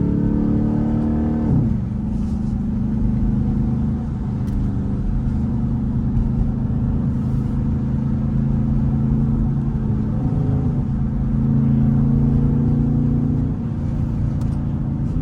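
Straight-piped Jeep SRT8 V8 exhaust under way: the engine note climbs, drops sharply with an upshift about a second and a half in, then holds a steady low drone while cruising.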